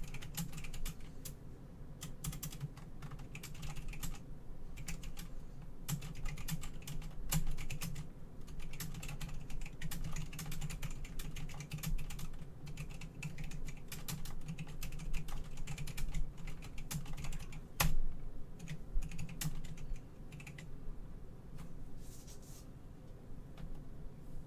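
Typing on a computer keyboard: irregular runs of key clicks with short pauses between them and one louder click about 18 seconds in, over a steady low hum.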